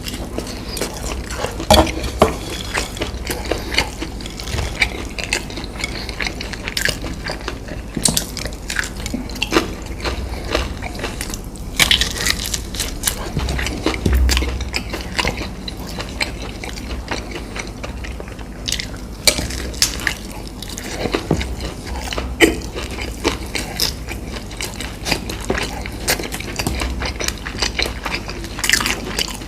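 Close-miked eating sounds: food being handled and bitten, with irregular crackles, clicks and wet chewing noises throughout.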